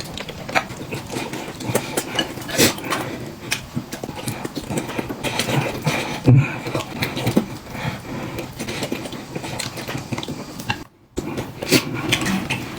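Close-up eating sounds: chewing, smacking and slurping of fatty red-braised pork belly, with many small irregular clicks and taps. The sound drops out briefly about eleven seconds in.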